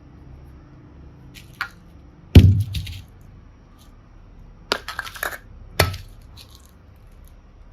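Slime and small toy pieces being handled: scattered sharp clicks and taps, with one heavy knock about a third of the way in and a quick cluster of clinks past the middle.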